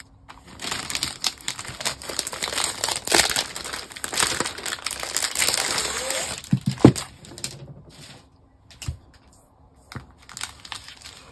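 Plastic packaging of a diamond painting kit crinkling and rustling as it is handled: the cellophane wrap and the strip of plastic bags holding the resin drills. A single thump comes about seven seconds in, followed by quieter, sparser rustles.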